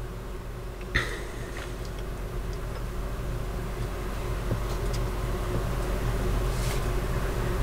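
A steady low background hum that slowly grows a little louder, with a small click about a second in.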